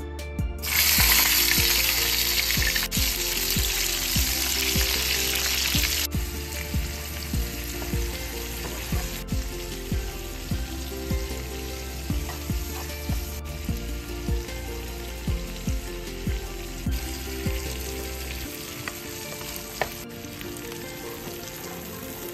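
Chopped onion and green capsicum sizzling in hot oil in a frying pan as they are stirred with a spatula. The sizzle starts abruptly and loud about a second in, then settles to a steadier hiss after about six seconds.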